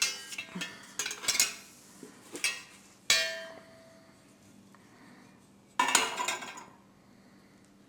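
Sharp knocks and clinks of hard parts being handled and fitted together during assembly, several separate strikes. One strike about three seconds in leaves a brief ring.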